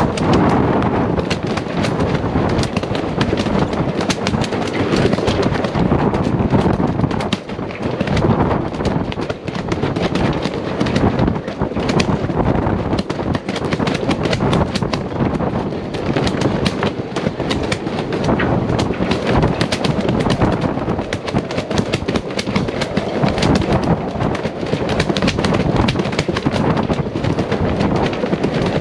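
Gale-force wind buffeting the microphone, with a dense, continuous crackle of wind-driven rain and spray striking it.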